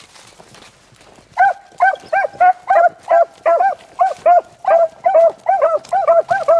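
Beagle hounds baying on a rabbit's trail: loud, rapid chop barks, about three a second, sometimes overlapping, starting about a second and a half in.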